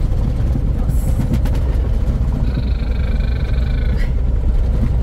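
Mercedes-Benz 1418 4x4 truck driving over a rough dirt track, with its diesel engine and road noise making a steady heavy rumble inside the cab. A few knocks come about a second in, and a high squeak lasting about a second and a half comes about halfway through.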